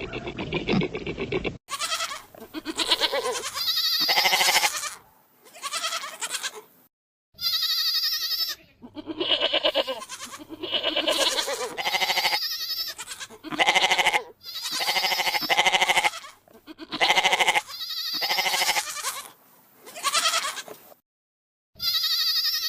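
Goat and ibex bleats: a string of about fifteen calls, each a second or so long, with short breaks between them, some starting and stopping abruptly.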